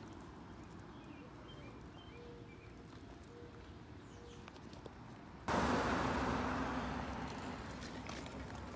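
Quiet street ambience with a few faint bird chirps, then a sudden loud rushing noise about five and a half seconds in that slowly fades away.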